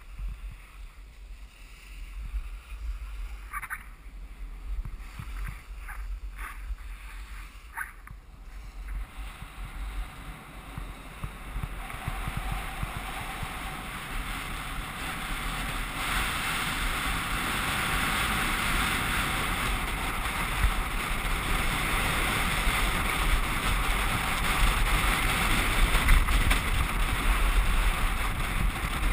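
Wind buffeting the microphone over the hiss of skis sliding on packed snow, getting louder from about twelve seconds in as the skier picks up speed. A few short clicks sound within the first eight seconds.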